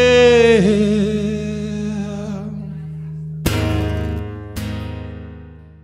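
Male voice holding the last sung note of the song over a ringing acoustic guitar chord; the voice drops away about half a second in and the chord fades. Then two final strummed chords on the acoustic guitar, about a second apart, each ringing out and dying away near the end.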